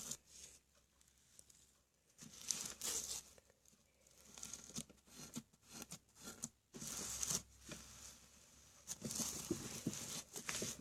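Grainy slime full of tiny decorative sand rocks being squished and stretched, giving faint irregular crackling and tearing sounds in several spurts separated by near-silent gaps, the first couple of seconds nearly silent.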